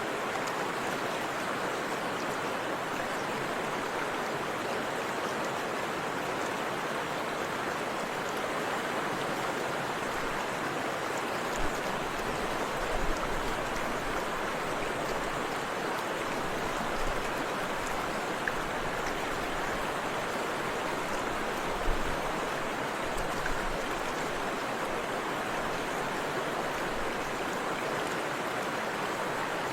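Forest river rushing steadily over a waterfall, with a few brief low thumps about midway through.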